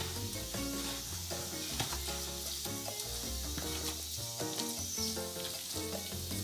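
Hand squishing and stirring chicken pieces through a wet yogurt-and-gram-flour spice marinade in a plastic bowl, a steady wet squelching, with background music under it.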